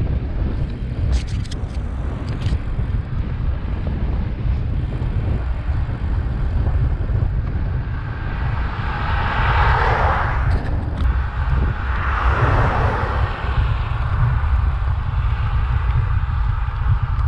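Wind rumbling on the microphone of a camera on a moving bicycle. Two cars pass close by, one after the other, a little past the middle, each a rising and falling rush of tyre and engine noise.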